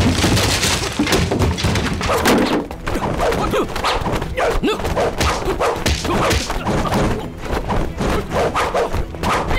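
Staged kung-fu fight sound effects: a rapid, continuous run of punch and kick thuds and weapon swishes, mixed with the fighters' short grunts and yells.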